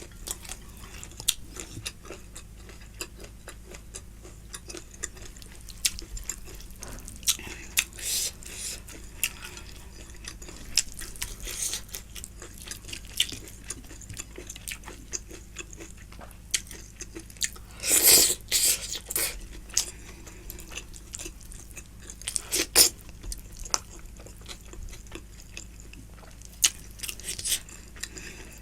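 Close-miked chewing and biting of curry and rice: wet smacks and short crunchy clicks in an uneven stream, with a louder, longer noisy burst about 18 seconds in.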